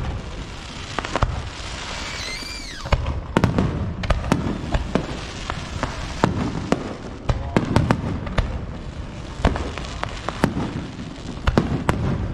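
Fireworks display at close range: aerial shells bursting in a rapid series of sharp bangs with rumbling echoes, and a whistling firework about two seconds in.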